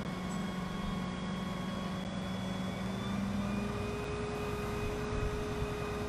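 Mobile truck crane's diesel engine running steadily as it hoists a steel beam; about three and a half seconds in its note shifts higher as the lift gets under way.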